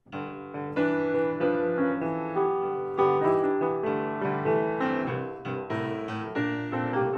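Intro piano music: chords and melody notes struck about every half second and left to ring and fade.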